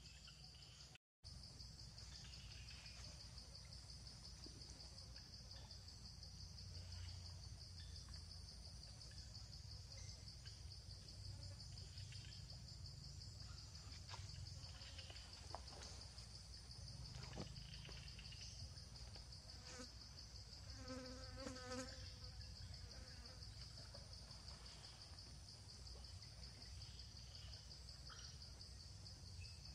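Faint insect chorus of cicadas or crickets: a steady, high-pitched pulsing trill over a low background rumble, with a brief pitched call about two-thirds of the way through.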